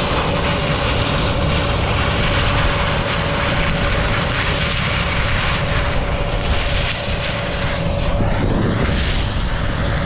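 Combine harvester running steadily while harvesting corn: a loud, even machine noise with a steady whine that fades out about eight and a half seconds in.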